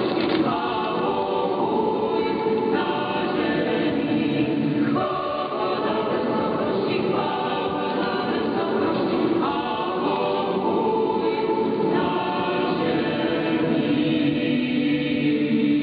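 Church choir singing a hymn, received as an AM longwave radio broadcast, so the sound is narrow and cut off above about 5 kHz.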